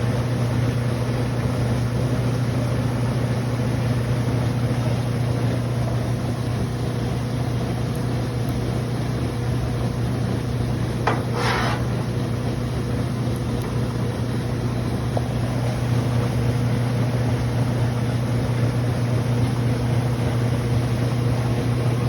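Washing machine running with a steady low motor hum, and a single brief click about halfway through.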